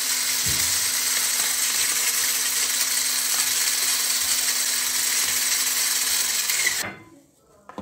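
Electric mixer running at a steady speed, its whisk beating thin chocolate cake batter; it switches off suddenly near the end.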